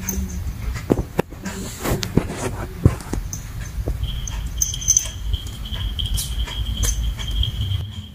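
A cat pawing at a small scrap of paper on a glass surface: scattered sharp taps and scrapes over a low rumble of handling. A thin steady high tone comes in about halfway.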